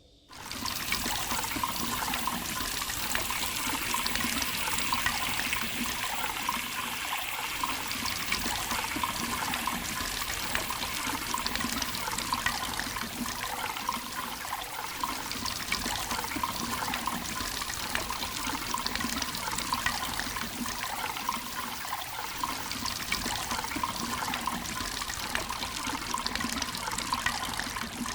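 Water boiling hard, a dense steady bubbling with many fine pops, cutting in abruptly.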